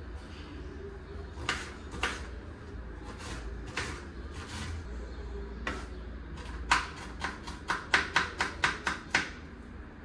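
Kitchen work sounds: scattered sharp knocks of utensils, then a quick run of about ten knocks, some four a second, near the end, over a low steady hum.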